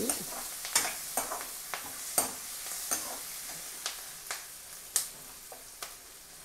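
Onions frying in oil in a kadai, the sizzle slowly fading now that the stove is switched off, while a steel ladle stirs them, scraping and clinking against the pan about once a second.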